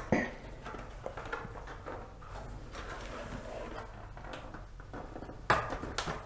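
Dell Inspiron 15 3520 laptop case being slowly pried apart with a thin opening tool: faint scraping and small clicks, with a sharp snap just after the start and another about five and a half seconds in as the case clips let go.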